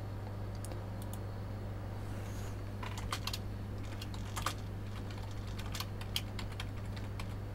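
Computer keyboard keys tapped in short irregular runs, over a steady low hum.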